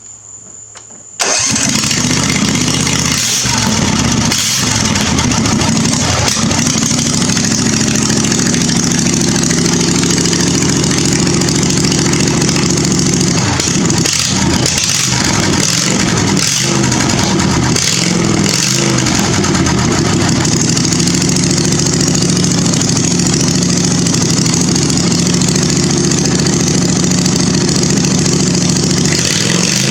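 Briggs & Stratton V-twin engine of a zero-turn mower, its muffler removed, starting about a second in and then running loud through the open exhaust.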